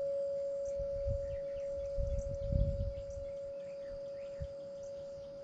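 A large tubular wind chime ringing on with a single deep, steady tone that slowly fades. Low gusts of wind rumble on the microphone come and go, loudest around the middle.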